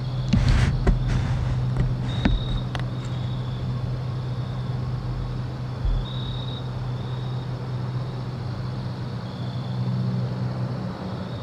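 A steady low engine hum, like a vehicle or machine running at a distance, that dies away near the end. A few rustles and clicks come in the first three seconds, and short high chirps recur every few seconds.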